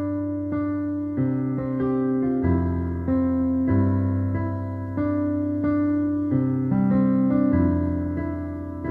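Background music: a keyboard playing piano-like notes and chords that change about once a second.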